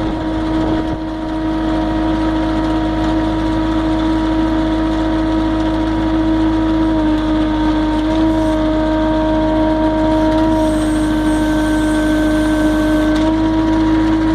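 MultiOne compact loader running steadily while driving a hydraulic finger bar hedge cutter: an even engine drone with a steady whine over it. The pitch sags briefly twice around the middle.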